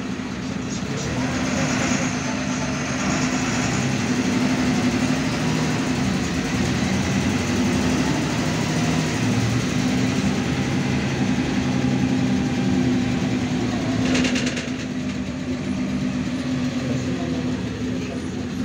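The MAN Lion's Classic city bus's diesel engine and drivetrain running, heard inside the cabin with road noise. It gets louder about two seconds in as the bus gets under way. A short hiss comes about fourteen seconds in, after which the engine eases off.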